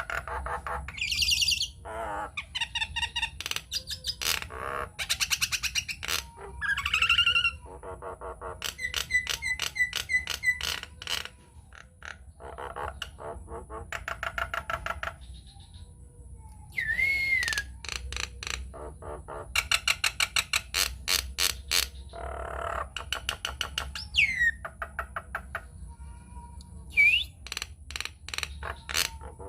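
Nias hill myna calling: fast runs of clicking, rattling chatter alternating with loud whistles, some bending or sliding in pitch.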